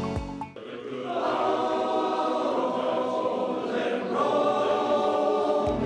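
A large men's barbershop chorus singing sustained chords a cappella, coming in about half a second in as a background music track cuts off, with a change of chord about four seconds in.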